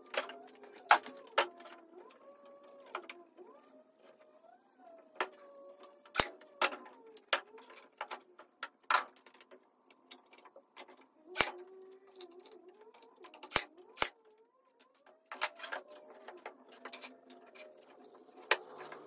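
Brad nailer firing 18-gauge brad nails into pine boards: a series of sharp, irregularly spaced clacks, a dozen or so, a few of them much louder than the rest.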